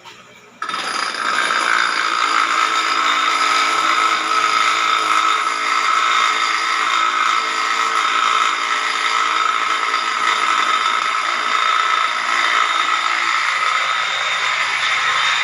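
Brake lathe's carbide bit cutting a rotating brake drum, a loud steady metallic scraping with several high held tones, starting abruptly about half a second in. The cut is resurfacing the drum's braking surface to make it even again.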